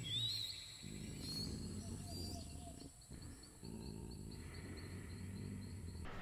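Jungle ambience: a few bird chirps that rise and fall in pitch over a steady high insect-like drone and a low rumble, all cutting off about six seconds in.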